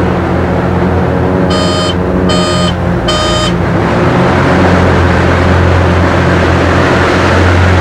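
SIAI-Marchetti SF-260's six-cylinder Lycoming piston engine and propeller running steadily in flight. Three short beeps come close together about a second and a half in.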